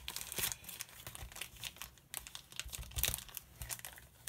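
Clear plastic bag crinkling and rustling as it is handled and opened to slide out a photo-etch sheet, in a string of irregular crackles.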